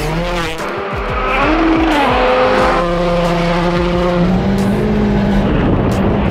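Hyundai i20 WRC rally car's turbocharged engine revving hard, its pitch rising, falling and stepping through gear changes, as the car slides on gravel.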